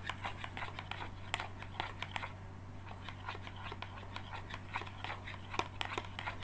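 Metal spoon stirring a thin white-glue-and-water mixture in a plastic bowl: quick, irregular clicks and scrapes of the spoon against the bowl, easing off briefly a little after two seconds in. A steady low hum underneath.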